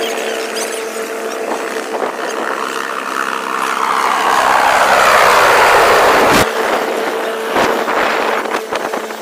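Mil Mi-17 military helicopter flying low overhead: rotor and turbine noise with a steady whine, swelling louder and then breaking off suddenly about six seconds in. After the break it continues more quietly, with scattered sharp sounds.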